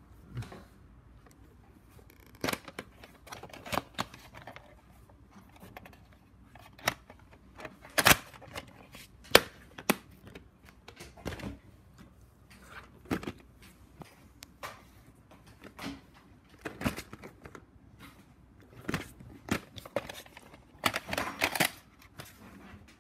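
Plastic VHS cases being handled: irregular clicks, taps and light rattles, with a quick cluster of clicks near the end as a plastic clamshell case is opened and the cassette lifted out.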